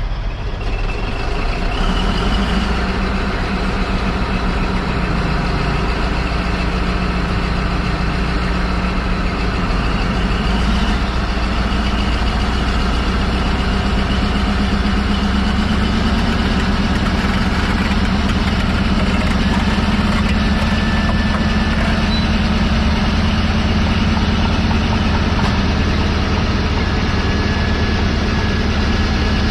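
Heavy Caterpillar bulldozer diesel engines running close by, a steady low drone that builds over the first couple of seconds and then holds.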